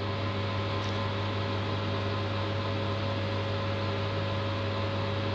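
Steady electrical hum: a low drone with a few fixed higher tones over a faint hiss, unchanging throughout.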